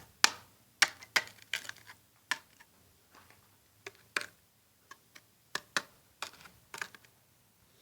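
Switch box being tapped and pressed into wet cement in a wall to seat it: a string of sharp, irregular taps and knocks, about fifteen to twenty in all.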